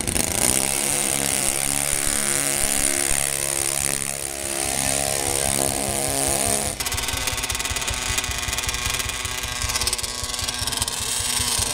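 Small engines of an RC mini pulling tractor running hard as it pulls a weighted sled, the pitch stepping up and down. About seven seconds in there is a sudden change to a different steady engine sound, from a mini pulling tractor held on a test stand.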